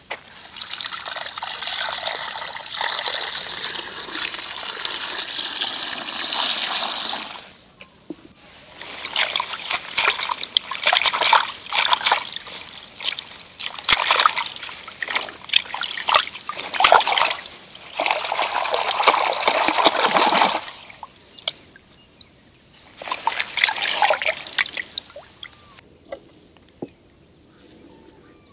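Water trickling steadily for about seven seconds, then hands swishing and splashing fresh spring onions, radish and greens in a bowl of water, in irregular bursts that die down near the end.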